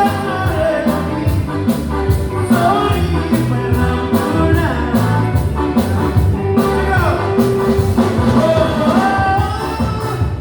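A band playing live: a singer over bass and a steady drum beat.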